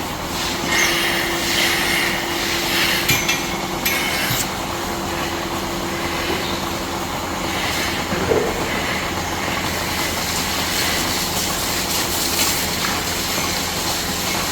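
Milking-parlour machinery running: a steady machine hum with the rhythmic click-click-clicking of milking-machine pulsators and some hissing air. The pulsators switch the teat-cup suction on and off so the vacuum is never constant.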